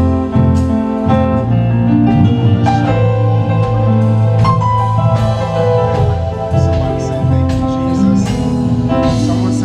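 Worship band playing an instrumental: held keyboard chords over a steady bass, with drums and cymbal strokes.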